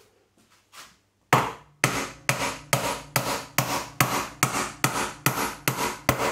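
Hammer driving a galvanised round wire nail into painted timber: about a dozen steady blows, a little over two a second, starting about a second in, the first the loudest. The nail goes in cleanly.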